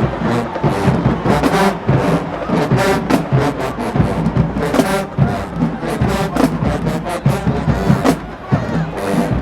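Marching band playing, with brass horns carrying sustained chords over a steady beat of drums and percussion.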